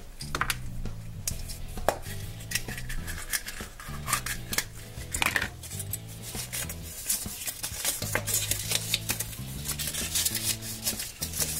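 Hands handling a plastic surprise-egg capsule and crinkling its folded paper insert: many small clicks and rustles. Background music with a steady low bass line plays underneath.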